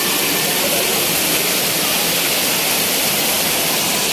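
Heavy rain pouring down in a downpour: a steady, even hiss of rainfall.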